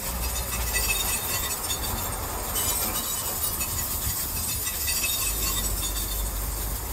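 Steady road noise heard inside a moving car: a low rumble with hiss above it.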